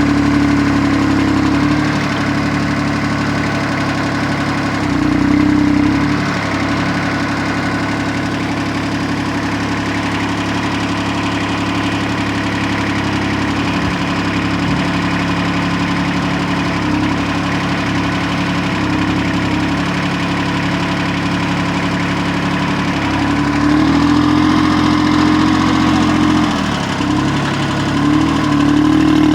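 VST 224 compact tractor's diesel engine running steadily, its speed rising briefly about five seconds in and again for several seconds near the end, as when the loader or backhoe is worked.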